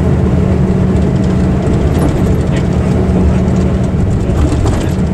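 Ikarus EAG 395 coach on a Scania chassis heard from inside the passenger cabin while under way: a steady engine drone with a constant low hum and road noise. A few light clicks come about two seconds in and again near the end.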